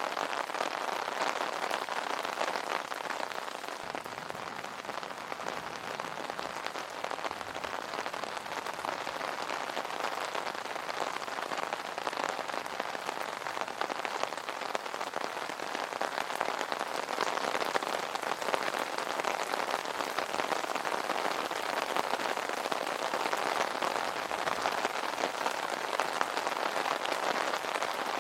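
Steady rain drumming on an umbrella canopy: a dense patter of countless small drop ticks with no let-up.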